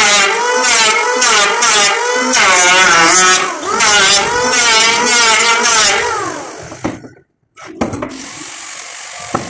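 Electric hand planer running and shaving a wooden board in quick repeated passes, its motor whine dipping with each cut over a high hiss of shavings. About six seconds in it is switched off and winds down, then it is set down on the bench with a few knocks.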